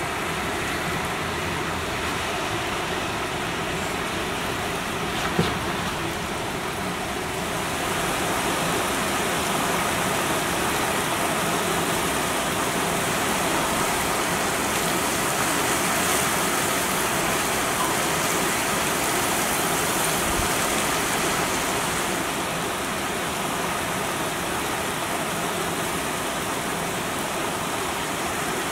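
Heavy wind-driven rain pouring down, a steady hiss of rain on roofs and streets that grows a little louder about eight seconds in. One short sharp knock about five seconds in.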